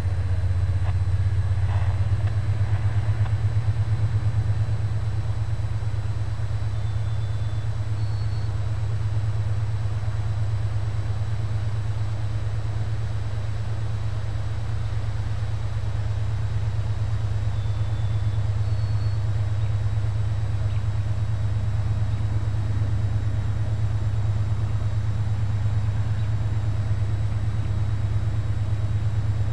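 An engine running steadily: a low, even hum that holds without change.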